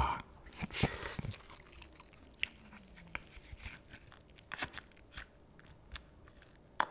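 Close-miked eating sounds: scattered soft clicks and crackles as a mouthful is chewed and a wooden spoon scrapes roe and innards out of a soy sauce-marinated raw crab's shell.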